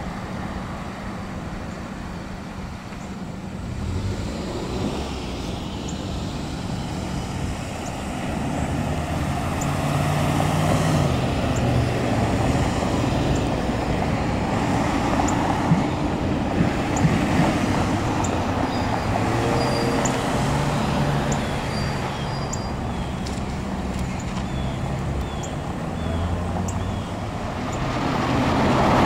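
Road traffic at a signalized intersection: cars, SUVs and a truck running and passing, with engine hum and tyre noise that swells as vehicles go by.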